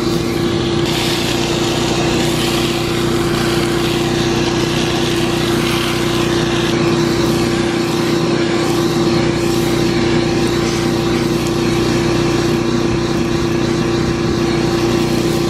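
A vacuum runs with a steady motor hum while its corrugated hose sucks up gravel and gold concentrate from a drywasher's riffle tray.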